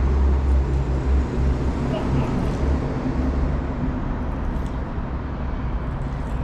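A steady low mechanical rumble with a faint hum over it, a little louder in the first second or so.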